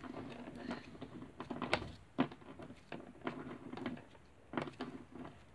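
Slime squished and stretched between the fingers, making irregular sticky clicks and pops, the loudest about two seconds in.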